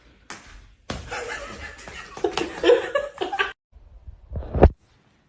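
A person laughing in breathy snickers and chuckles, then a short, loud thump about four and a half seconds in.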